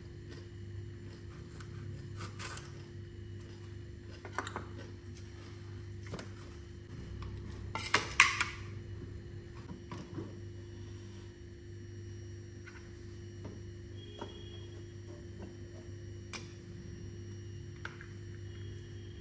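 Cutlery clinking against dishes during a meal: scattered light clicks, with a louder clatter about eight seconds in, over a steady low hum.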